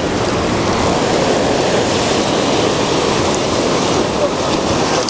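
Ocean surf washing steadily at the shore, mixed with wind on the microphone.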